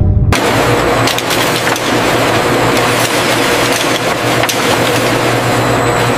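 A conveyor belt running with a pile of oyster shells on it, the shells rattling and clicking against each other over a steady machine hum.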